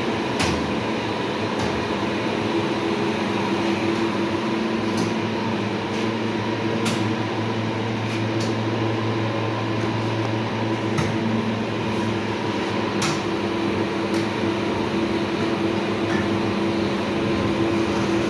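A steady machine hum with a few steady tones in it, broken by a handful of sharp clicks scattered through.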